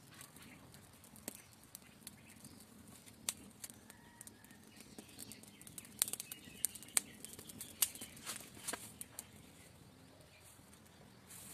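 Small fire of dry grass and sticks crackling, with sharp irregular pops that come thickest about six to nine seconds in.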